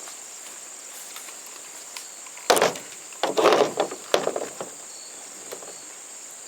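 Crickets chirping in a steady high drone. About two and a half seconds in, a sharp knock, then a second of rustling and clattering and another sharp knock, like a wooden board being handled and set down.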